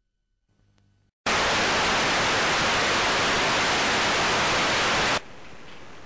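Television static hiss, loud and even, starting suddenly about a second in and cutting off abruptly about four seconds later, leaving faint room background.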